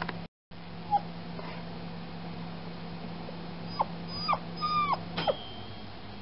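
Freshly spayed puppy whimpering: a brief squeak about a second in, then a run of four or five high whines near the end, each one dropping in pitch.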